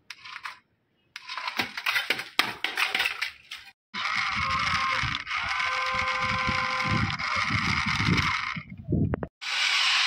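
Toy remote-control car's small electric motor and gearbox whirring as a steady high hiss, in short takes with abrupt cuts between them. Before the first whirring take there is a stretch of irregular crackling and clicking.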